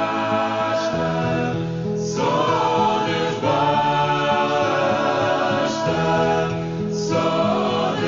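A choir singing sacred music, holding sustained chords that shift every second or two.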